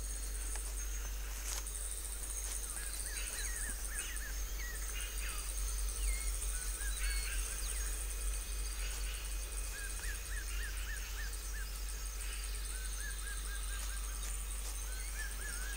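Natural forest ambience: groups of short, quick chirping calls come several times over a steady high hiss and a low rumble.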